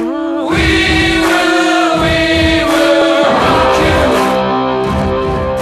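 Background music: choral voices singing long held notes over a beat.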